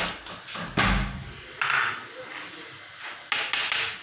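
Spoonfuls of sugar being added to a saucepan of milk: a metal spoon knocking and scraping against the pot, with a heavy thump about a second in and short scraping bursts near the middle and end.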